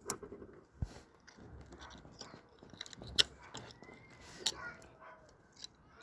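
Small metal clicks and taps as watch parts and tools are handled during reassembly, with a few sharper clicks, the loudest about three seconds in.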